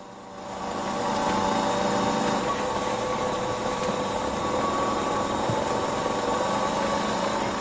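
Fulford percussion hammer, an electric vibrating tool with a rubber pad, buzzing steadily as it is pressed against the ribs. It builds up over about the first second, then holds a steady pitch, its speed set to make the rib cage resonate.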